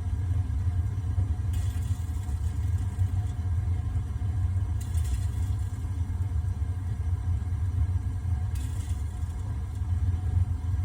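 Gas water heater flame burning with a steady low rumble, and a faint hiss swelling up three times. This is the sizzling the owner heard after relighting the pilot, which he takes for moisture or something burning off inside, along with an orange flame.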